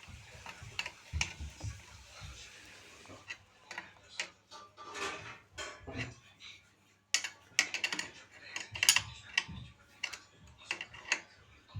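Hand tool tightening the mounting bolts of a bicycle rear derailleur guard: irregular metal clicks and clinks, coming thicker and louder about two-thirds of the way through.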